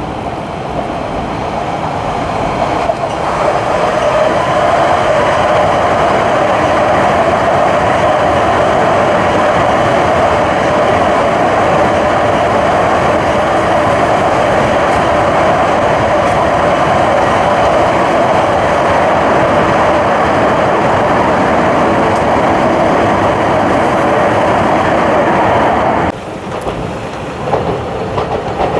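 Tohoku Shinkansen E5-series train coupled to an E6-series Komachi running past on the elevated track: a loud, steady running noise of wheels on rail that builds over the first few seconds, holds, and drops off abruptly near the end.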